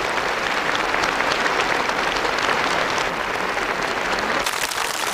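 Audience applauding, a dense steady clatter of many hands; about four and a half seconds in it turns suddenly brighter and crisper.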